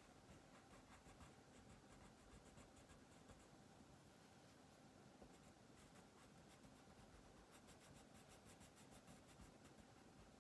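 Faint scratching of a wax crayon on paper as a page is colored in with quick back-and-forth strokes, several a second, coming thickest near the end.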